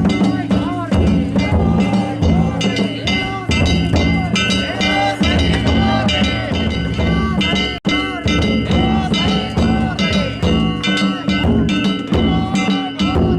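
Danjiri festival hayashi: taiko drum beats under clanging, ringing hand gongs (kane), played continuously as the float is pulled. The sound breaks off for an instant a little past halfway.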